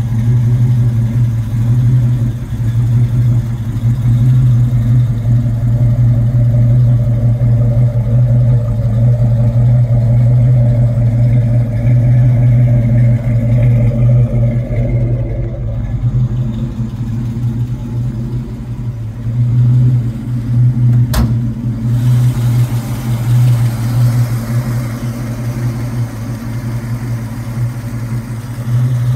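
1967 Ford Mustang GT's 390 cubic-inch big-block V8 idling steadily through its dual exhaust, with one sharp click about two-thirds of the way through.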